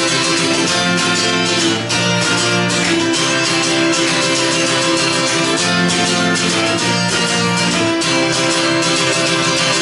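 Acoustic guitar strummed hard and fast in a steady driving rhythm, the chords changing every second or two.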